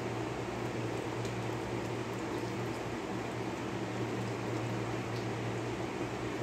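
Steady low mechanical hum, like a fan or a running kitchen appliance, with a couple of faint light ticks.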